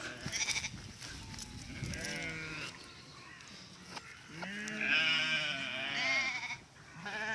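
A flock of sheep bleating as a herding dog moves them, several animals calling in turn with wavering bleats that overlap in a loud cluster from about four and a half to six and a half seconds in.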